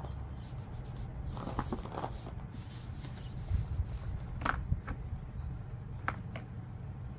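A cloth rubbing and scuffing over the plastic case of a Honda EU1000i generator in short, uneven wiping strokes, over a steady low rumble.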